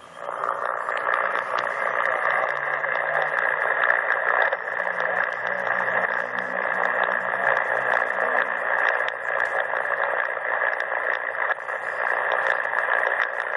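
Shortwave receiver's speaker hissing with static on the 40-metre band at 7.272 MHz between transmissions: a steady, narrow-band rush of noise dotted with crackles.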